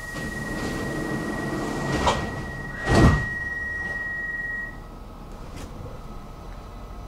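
Stockholm metro train's sliding doors closing: a steady high warning beep sounds while the doors slide shut and close with a loud thump about three seconds in. The beep stops just under five seconds in.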